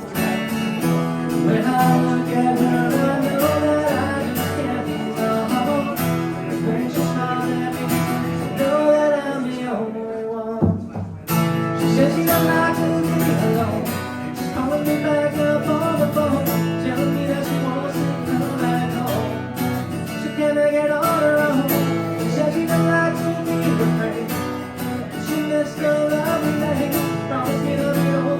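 Acoustic guitar strummed as accompaniment to a sung original song, with a brief break about ten seconds in before the playing resumes.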